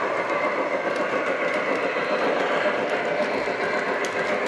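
O gauge model train cars rolling along the layout's track: a steady rattle of metal wheels on the rails, with a few faint clicks.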